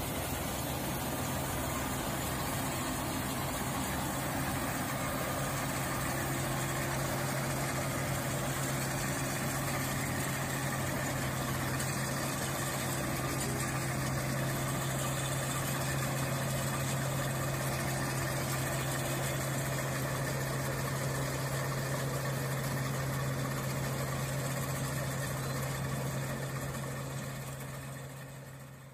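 Combine harvester engine running steadily: a constant low hum under an even mechanical clatter, fading out near the end.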